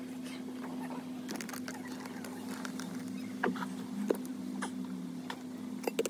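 Light rustling and a few sharp plastic clicks as wiring-harness connectors and loose wires are handled, over a steady low hum.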